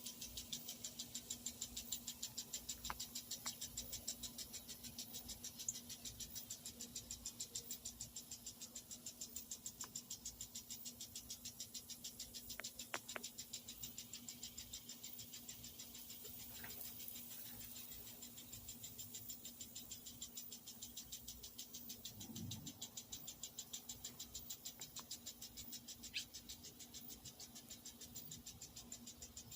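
Lawn sprinkler water pattering in a fast, even ticking rhythm of about five beats a second, over a faint steady low hum.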